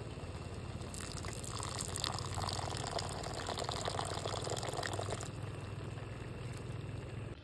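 Water poured into a pot of cooking rice for about four seconds, starting about a second in, topping it up so the rice doesn't burn. A steady low hum runs underneath.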